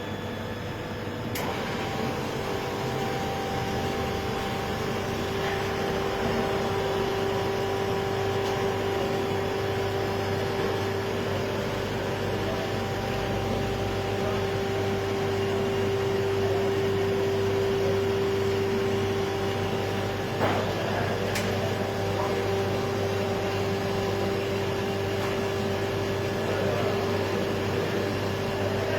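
Automatic beer keg washer running: a steady machine hum with a constant whine that comes in just after a click about a second in. Another sharp click about two thirds of the way through.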